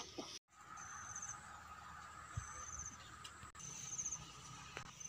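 Insects chirping outdoors in short, high, pulsed trills about every second and a half, over a faint steady background. The audio drops out briefly just after the start.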